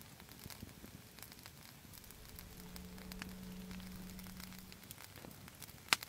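Wood campfire crackling with scattered faint pops, a low steady hum running for about two and a half seconds in the middle, and one sharp snap near the end.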